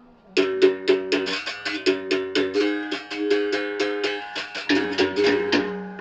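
Berimbau struck fast with its stick, about five strikes a second, the notes stepping between a few pitches in a quick melodic run that dies away near the end.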